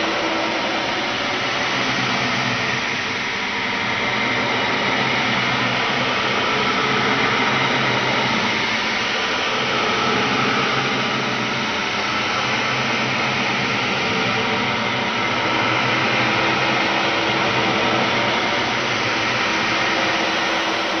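Steady, dense rushing noise like a loud hiss, with a faint low hum underneath, swelling only slightly: a horror sound-effect drone.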